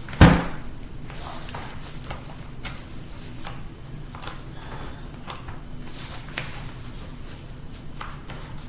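A sharp knock just after the start, then scattered small clicks and scrapes of a screwdriver working at a screw in a MacBook's case.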